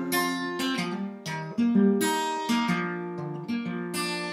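Acoustic guitar strumming chords, about two strokes a second, with each chord ringing on between strokes.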